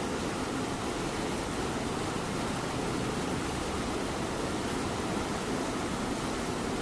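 A cat purring steadily, mixed with the even hiss of light rain.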